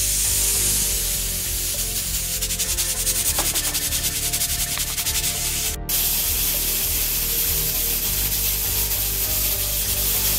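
All American 921 pressure canner holding 10 PSI, hissing steadily as steam escapes past its weighted gauge. For a few seconds in the middle, the weight rattles in quick ticks. This is the normal occasional hiss and clank of the weight venting just over 10 PSI.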